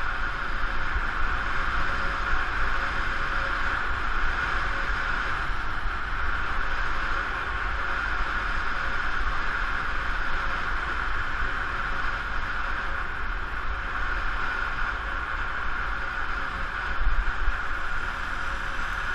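Steady rush of wind on the microphone and tyre noise from a bicycle riding fast on an asphalt road, with a deep rumble underneath.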